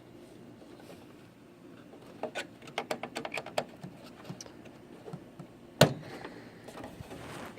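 Computer hardware being handled: a quick run of light clicks and taps, then a single sharp knock.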